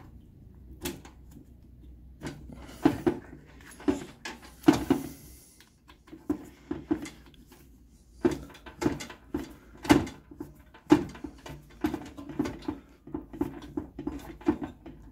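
Allen key turning a socket-head screw on a Chinese diesel heater's casing: a run of sharp clicks and taps as the key is worked round and reseated, scattered at first, then coming about two or three a second in the second half.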